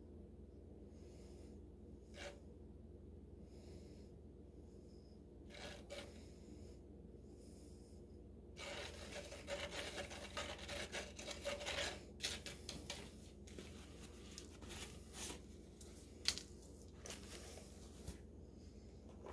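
Faint scraping and rasping of a stick stirring concrete mix in a plastic cup, densest for a few seconds about nine seconds in, then broken into scattered taps and scrapes.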